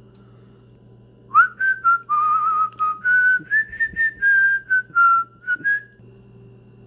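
A person whistling a short tune of a dozen or so notes, some held with a slight wobble, starting about a second in and stopping about a second before the end.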